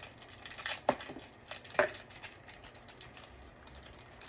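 Snack packaging handled by hand: small rustles and ticks, with two sharp clicks about a second apart.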